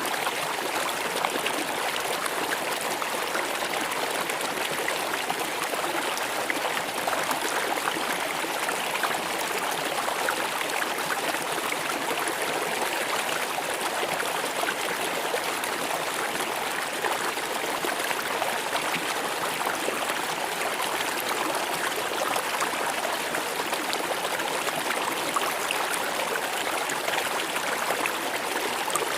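Stream or small river flowing steadily over rocks, a constant rushing with fine splashing.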